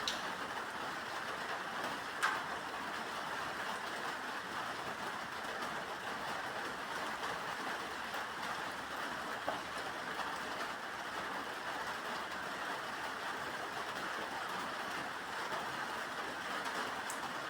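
Steady rain falling, an even hiss, with a few sharper drop sounds, the clearest about two seconds in.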